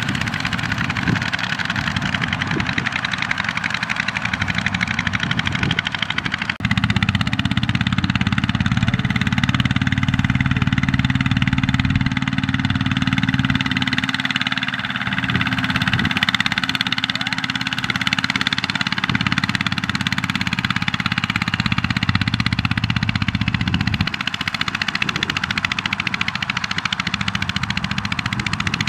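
Single-cylinder diesel engines of two-wheel walking tractors running steadily as they haul loaded trailers. The engine note gets louder and fuller about six and a half seconds in and eases a little near the end.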